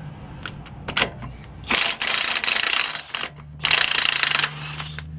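Cordless impact wrench hammering on a front-suspension nut in two bursts of about a second each. A few light metal clinks come first, as the impact socket goes onto the nut.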